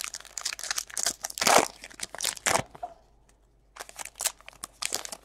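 A stack of trading cards flipped through by hand: quick, sharp swishes of card stock sliding over card stock. The strokes come in rapid succession, stop for a moment about three seconds in, then start again.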